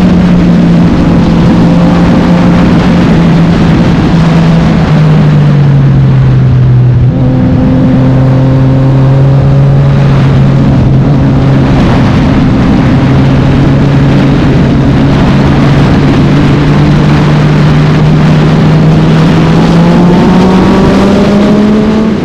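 A vintage racing motorcycle engine running hard and loud. Its note steps down about five seconds in, holds low, then climbs slowly through the rest, over a steady rushing noise.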